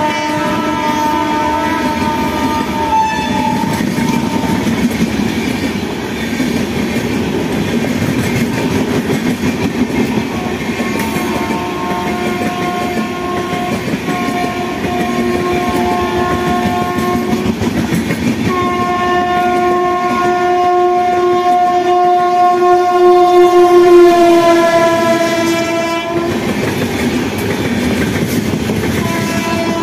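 WAP7 electric locomotive's air horn sounding in several blasts, then one long blast whose pitch drops as the locomotive passes, over the steady rumble and clickety-clack of an express train's wheels on the track. Another horn blast starts near the end.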